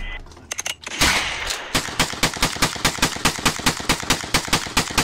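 Rifle firing in rapid succession, about five shots a second in one steady string that starts about a second in, after a few scattered sharp shots.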